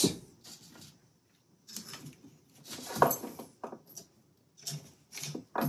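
Several small clicks and scrapes of hand work on a VW Mk1 steering column, with quiet gaps between them: screws being started and turned by hand with a screwdriver to fasten the wiper stalk switch into the aluminium housing.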